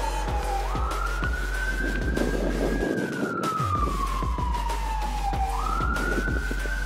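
A siren-like wail that jumps up in pitch, holds, then slides slowly down, rising again about five seconds later, over background music with a steady beat.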